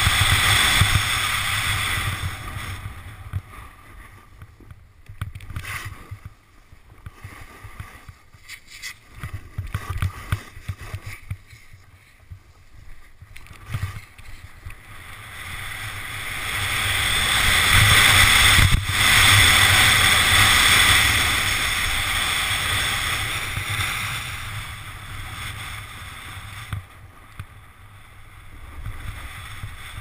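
Wind rushing over a helmet-mounted GoPro's microphone, with the scrape and hiss of edges carving packed snow while riding downhill. Loud at first, it drops for several seconds, then builds again to its loudest about two-thirds of the way through before easing off.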